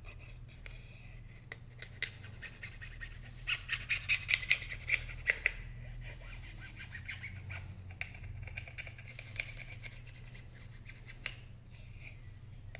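Small hand tools scraping and lightly clicking against the opened metal housing of an iPhone 6, with a quick run of sharper clicks about four to five seconds in.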